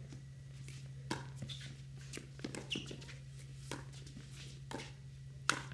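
Pickleball rally: paddles hitting the hard plastic ball in a series of sharp pops at uneven gaps of about half a second to a second, during a quick exchange at the net.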